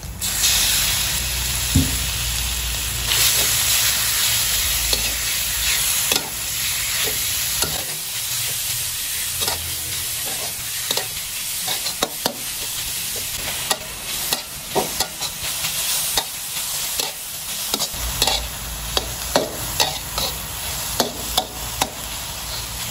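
Sliced pork going into hot oil with garlic and chilli in a metal wok, a loud sizzle surging up as it lands. It then keeps frying with a steady sizzle while a metal spatula scrapes and clanks against the wok as the pork is stir-fried. The clanks come more often near the end.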